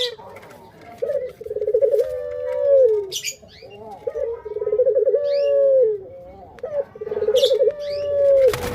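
Male puter pelung, a long-cooing Barbary dove breed, cooing three times: each coo a low rolling, pulsing phrase of about two seconds ending in a held note that slides down. Short high chirps from another bird fall in between.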